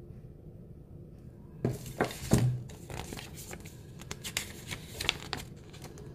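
Paper and packaging rustling and crinkling in the hands as a product card is picked up and handled, with a couple of louder knocks about two seconds in. It starts after a quiet second and a half and dies away near the end.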